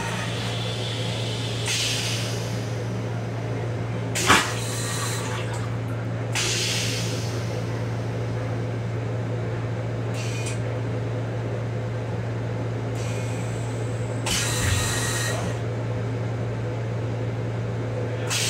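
A steady low hum inside an M7 railcar's restroom, with short hissing noises coming and going several times. A sharp click comes about four seconds in.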